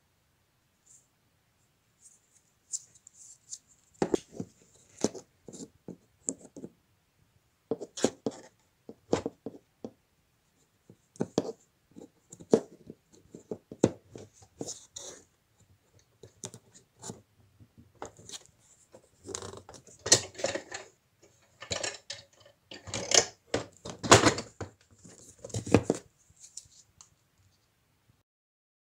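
Plastic handling noise: a LEGO boat hull and parts clicking, scraping and knocking against a hard plastic box in irregular bursts. It starts about two seconds in, gets busier in the second half and stops shortly before the end.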